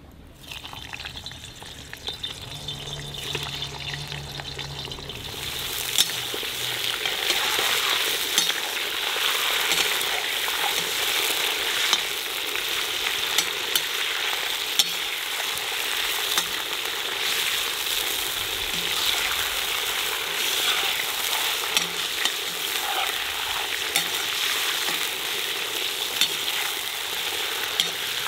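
Lamb ribs frying in hot rendered fat in a cast-iron kazan: a steady sizzle that builds over the first several seconds after the meat goes in, with the metal ladle clicking and scraping against the pot as the meat is stirred.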